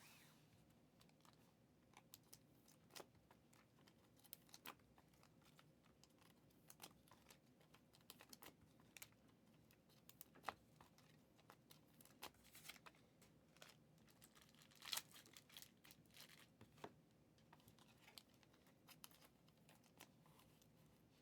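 Near silence broken by faint, scattered clicks and light crinkles, one every second or so, the loudest about fifteen seconds in.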